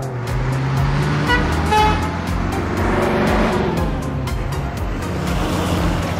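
Cartoon vehicle sound effects over background music with a steady beat, with two short horn-like toots about a second and a half in.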